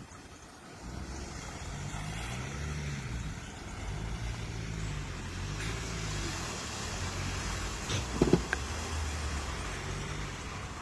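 Ford Ranger 4WD engine revving up and falling back again and again while driving off-road. A couple of sharp knocks come just after eight seconds.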